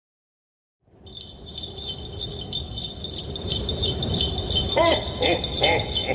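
Continuous jingling over a low rumble, starting about a second in and building in level, with a few short pitched pops near the end before it cuts off suddenly.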